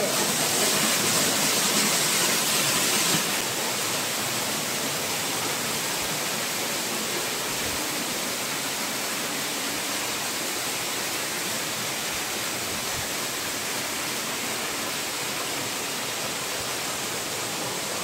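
Waterfall pouring into a rocky pool: a steady rush of falling water. It is louder and hissier for the first three seconds or so, then a little softer and even.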